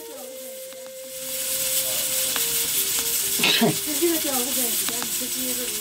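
Pressure cooker on a stove venting steam with a steady hiss that comes in about a second in.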